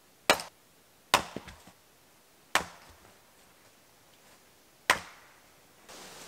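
Axe splitting firewood on a chopping block: four sharp chops a second or two apart, the second followed by a couple of lighter knocks.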